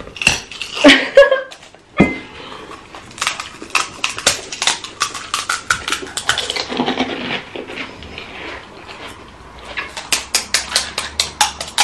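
Crisp pani puri shells crunching and cracking as they are chewed and broken open, in quick runs of sharp clicks, with occasional clinks of spoon against bowl.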